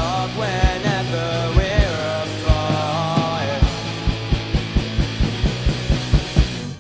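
Rock band playing an instrumental passage: drums under a melodic lead line in the first half, then drum hits coming faster, and the whole band stops abruptly near the end.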